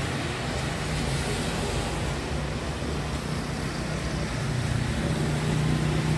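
Steady hiss of rain and tyres on a wet city road, with a low vehicle engine hum that grows a little louder near the end.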